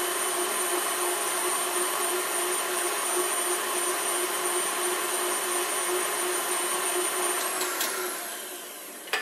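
KitchenAid Artisan stand mixer running on speed 8 with the wire whisk: a steady motor whine with a constant hum. About seven and a half seconds in it is switched off and winds down, falling in pitch, and a clunk follows at the very end.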